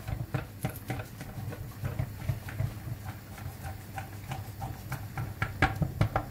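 A knife cutting through the flaky puff-pastry crust of a baked leek tart in a ceramic dish: a run of small crackles and clicks, with a louder cluster near the end.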